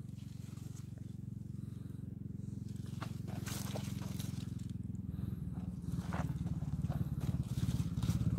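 A low, steady engine-like drone with a fine pulse, growing louder over the last few seconds, with light rustling and clicks of tomato leaves brushed by a hand.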